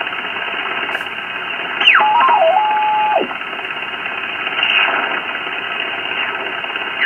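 Receiver audio of a Ten-Tec Jupiter 538 HF transceiver being tuned across the 20-metre band: steady band hiss with signals sliding through as the dial turns. About two seconds in, a strong signal sweeps past as a whistle that falls, wavers for about a second, then drops away. Fainter sweeping tones follow later.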